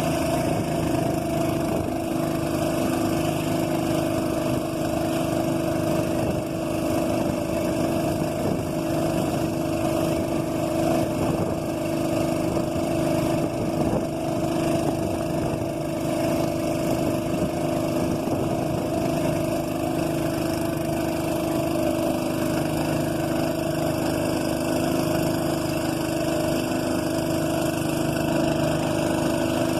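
A boat's motor running steadily at an even speed, its drone holding constant pitch and level throughout.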